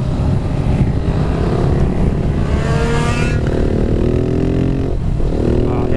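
KTM supermoto engine under hard acceleration, heard from the rider's helmet. Its pitch rises for about two seconds, then holds and eases. It breaks off briefly near five seconds in, as at a gear change, and then picks up again over a steady rush of wind and road noise.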